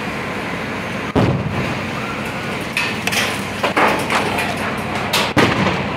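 Leftover fireworks still going off in the smoking explosion debris: several sharp bangs, about a second in, a couple around four seconds, and one near the end, over a steady hiss.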